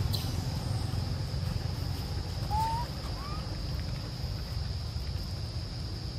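Steady high-pitched insect drone over a low rumble, with two short rising chirps around the middle.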